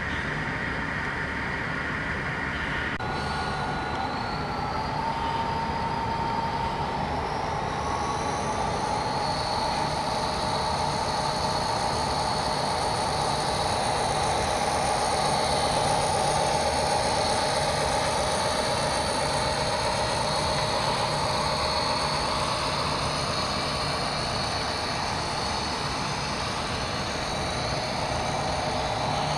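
Model diesel locomotive running on an HO-scale layout: a whine that rises in pitch over the first several seconds as it picks up, then holds steady over a constant rumbling hiss.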